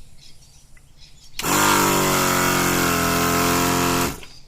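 Kings Thumper Max 12-volt air compressor starting up, running steadily for under three seconds and cutting off suddenly. Its pitch sinks a little just after it starts. It is pumping with the fitting removed, working up to maximum pressure.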